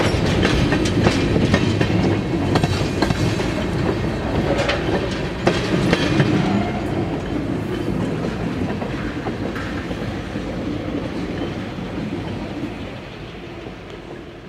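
Freight train's tank cars rolling past, their wheels clicking over rail joints with a heavy rumble. After the last car goes by about six seconds in, the rumble fades as the train rolls away.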